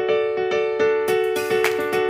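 Background music: a piano-like keyboard playing a melody of short notes. About a second in, a brighter layer of quick ticks comes in above it.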